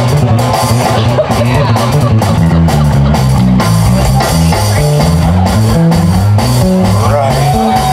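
Live blues band playing, with an electric bass guitar line stepping from note to note under drums and electric guitar. Near the end, a guitar note is bent up and held.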